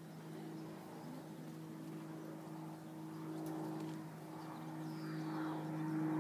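A steady low mechanical hum throughout, with the soft footfalls of a horse trotting on the sand arena surface growing louder as it approaches.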